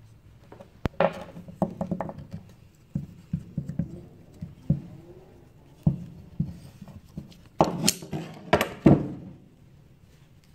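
Scattered clicks, taps and rubbing of hands and metal: slip-joint pliers gripping a small lead part while a threaded rod is turned by hand into its tapped hole, with a louder run of scraping and rubbing near the end.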